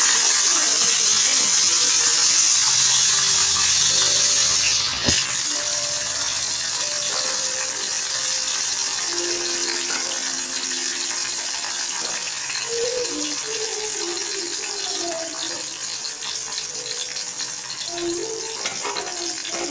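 Raisins sizzling in hot ghee, loudest at first and easing off after about five seconds. There is a single sharp click about five seconds in.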